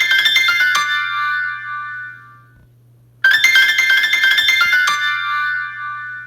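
An iPhone 12 mini ringtone: a rapid run of bright, piano-like chime notes that ends on a held chord and rings out. The phrase starts over about three seconds in.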